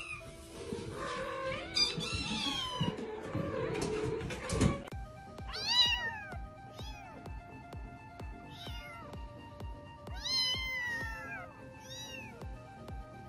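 Kittens mewing over background music: a noisy jumble for the first few seconds, then, from about five seconds in, a string of clear, high-pitched mews, each rising and falling, about one a second.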